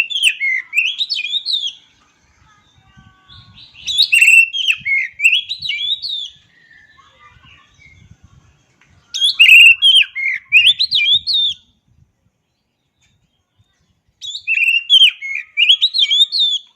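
Oriental magpie-robin (kacer) singing four short phrases of quick notes sweeping up and down. Each phrase lasts about two seconds, with pauses of a couple of seconds between them.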